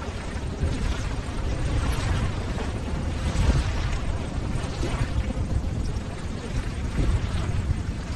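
Ocean surf: a steady wash of breaking waves with a deep rumble, gently swelling and easing in loudness.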